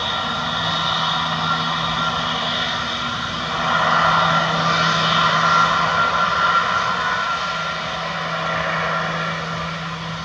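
Airbus A320neo's twin Pratt & Whitney geared turbofan engines running at low taxi power as the airliner turns onto the runway: a steady whine and hiss over a low hum, swelling slightly about four seconds in and easing off toward the end.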